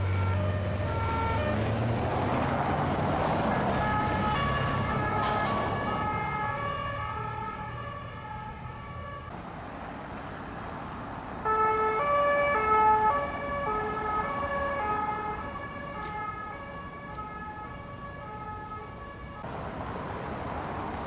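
French police two-tone sirens sounding as an escort convoy passes, the notes alternating between two pitches with more than one siren overlapping. A vehicle engine passes in the first couple of seconds. The sirens stop a little before halfway, and a louder set starts about two seconds later and runs until shortly before the end.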